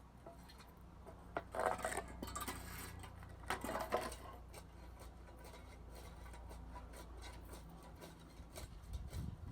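Metal tools clattering and scraping in two short spells, over a steady low hum.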